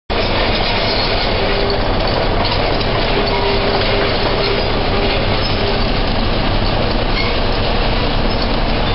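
Steady running noise of a heavy vehicle: a low engine drone under an even rushing noise, unchanging throughout.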